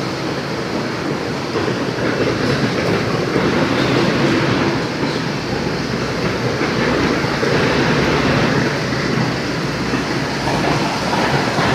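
Automatic chicken slaughtering line machinery running: a loud, steady mechanical din.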